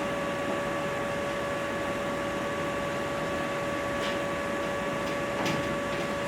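Steady background hiss with a constant high-pitched whine, a lecture-room recording with no one speaking; two faint clicks about four and five and a half seconds in.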